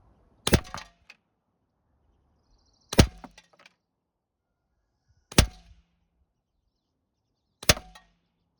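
Daisy 901 pump air rifle firing four single shots, roughly two and a half seconds apart. Each sharp report is followed by a brief rattle and ring.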